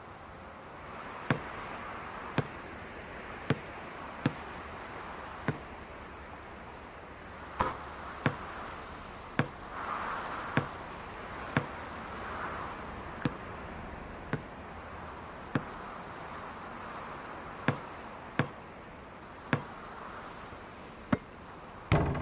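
Sharp knocks, each with a short low thud, repeating roughly once a second at a slightly uneven pace over a faint steady hum.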